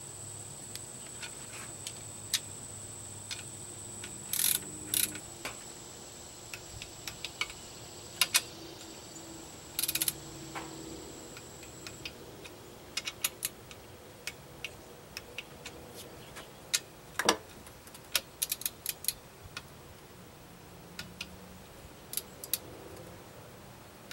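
Ratcheting torque wrench clicking in short runs, with metal tool clinks, as the water pump housing bolts on an Evinrude 9.9 outboard's lower unit are torqued down.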